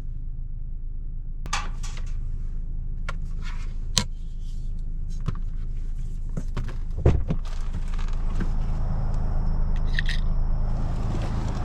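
Steady low hum inside a vehicle, with scattered small clicks, taps and light rattles of tools and phone parts being handled, and a knock about seven seconds in.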